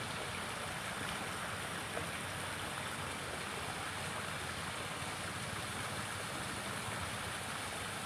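Small river flowing steadily, a continuous even rush of moving water.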